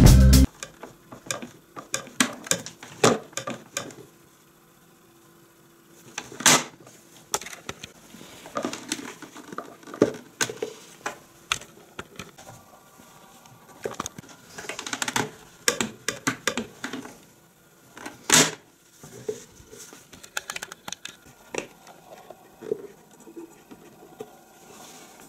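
Scattered plastic clicks, knocks and rattles from a Bosch MUM 4 kitchen machine being handled: the whisk being fitted, the swivel arm being moved and locked, and the rotary switch being turned. Two knocks are louder, about six seconds in and again near the middle.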